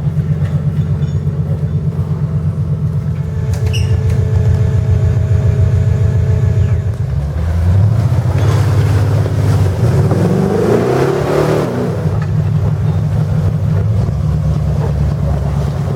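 Off-road truck engine running at a steady, pulsing idle, then revving up and down in pitch between about seven and twelve seconds in, before settling back to idle.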